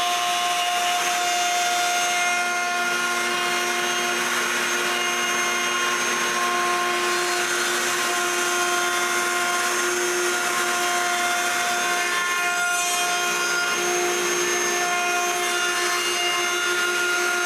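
Router with a roundover bit running and cutting a round-over along the outside edges of wooden tray frames. The motor whine is steady, its pitch shifting slightly now and then as the bit takes the wood.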